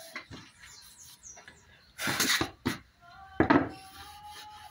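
Hands rubbing wax into a wooden rifle stock, with two louder rubbing strokes about two and three and a half seconds in. A thin, drawn-out squeaking tone runs through the second half.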